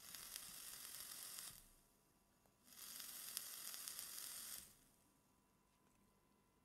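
The twin coils of a Goon 1.5 clone dripping atomizer, fired twice on a Wismec Noisy Cricket II: the e-liquid-soaked cotton sizzles for about a second and a half, stops, then sizzles again for about two seconds as it vaporises.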